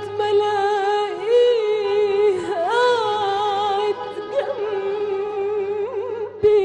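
A woman singing a long, ornamented melismatic phrase in classical Egyptian style, holding notes with wavering turns, over an orchestra's low sustained tone. The line breaks and a new phrase begins about four seconds in.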